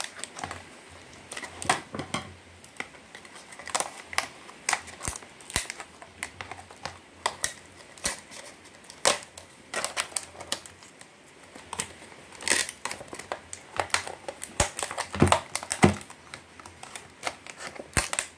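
Stiff clear plastic blister packaging crinkling and crackling as it is handled and cut open with scissors, in irregular sharp clicks and rustles.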